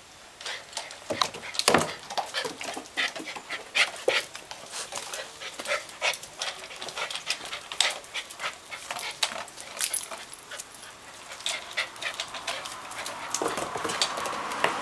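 Golden Retriever puppies whimpering and yipping: many short, high sounds in quick, irregular succession.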